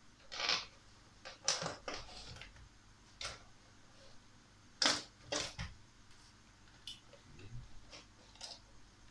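Plastic clicks and scrapes of an RC truck's polycarbonate body shell and its body clips being handled and pulled free of the chassis: a string of irregular sharp clicks, the loudest about five seconds in.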